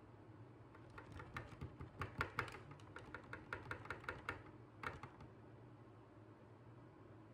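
Plastic pump dispenser on a bottle of foam cleanser being pressed over and over to fill a silicone travel bottle: a quick, uneven run of clicks, several a second, that stops about five seconds in.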